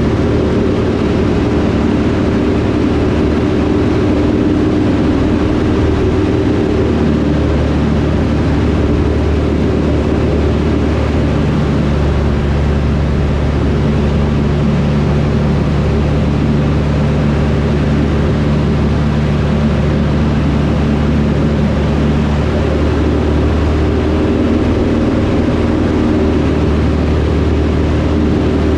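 Van's RV-6A light aircraft's piston engine and propeller droning steadily in flight, heard inside the cockpit, the tone of the drone shifting slightly now and then.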